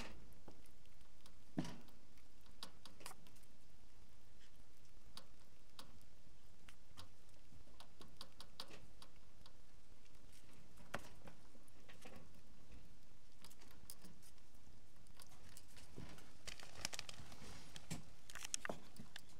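Faint scattered clicks, taps and rustles of a small pet animal moving and nibbling in a small room, with a slightly stronger tap about a second and a half in and a cluster of sharper ticks near the end.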